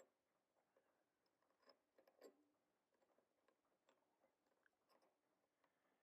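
Near silence with faint, irregular clicks of small metal hub parts being handled and fitted by hand, sharpest right at the start and about two seconds in.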